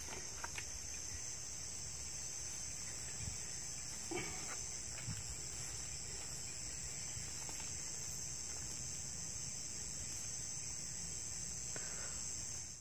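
A steady, high-pitched chorus of insects such as crickets buzzing continuously, with a few faint rustles about four to five seconds in.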